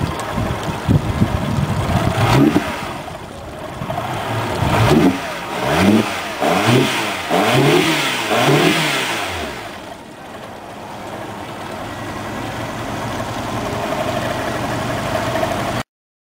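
2008 Yamaha 150 HP four-stroke outboard running with its lower unit in a water test barrel. It is revved up and back down several times in quick blips, then settles to a steady idle.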